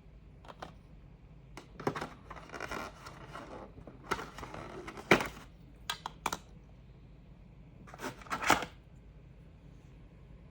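Hands handling packaging and small hard parts: scattered sharp clicks and knocks with two stretches of rustling and scraping.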